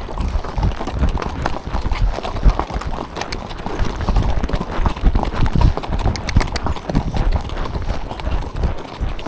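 Horse's hooves clip-clopping as it is ridden, a continuous run of uneven low thuds from its strides.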